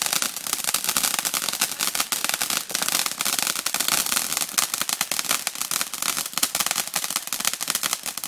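Ground firework fountain spraying sparks, with a dense, rapid, steady crackle.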